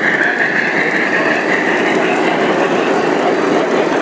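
O gauge model trains running on the layout's track: a steady rolling rumble of wheels on rail with a high whine over it.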